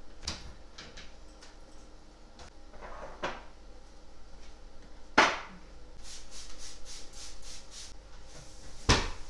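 Kitchen cleaning clatter: scattered knocks and bumps of things being handled and set down on a kitchen benchtop, the loudest about five seconds in and just before the end. A quick run of about eight short swishes comes a little past the middle.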